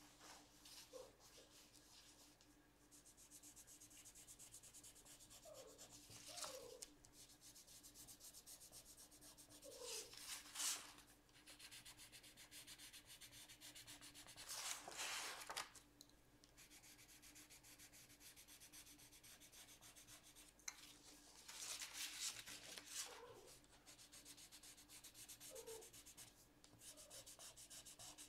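Coloured pencil scratching faintly across paper in quick, short shading strokes. A few louder swishes about a second long come in now and then.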